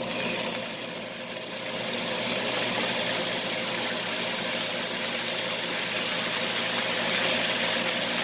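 Barbecue sauce sizzling in a hot skillet of fried hot dogs, a steady hiss that swells about a second and a half in as the sauce spreads, over a steady low hum.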